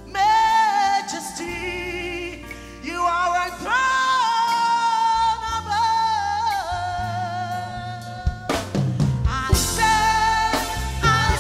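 A woman singing a gospel worship song into a microphone, holding long wavering notes over steady band accompaniment. A drum kit comes in about two-thirds of the way through.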